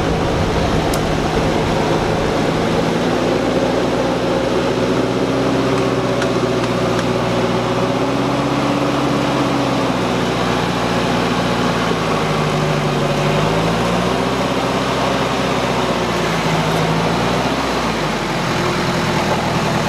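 Off-road vehicle engine running under load while a mud-stuck Jeep Cherokee is pulled out of a flooded rut on a tow chain; the revs rise and fall several times as the throttle is worked, then drop back near the end.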